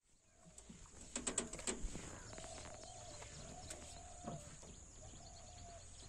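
Faint open-air ambience with a steady high hiss and a bird calling on and off in a faint wavering tone. A short run of clicks and knocks a little after a second in.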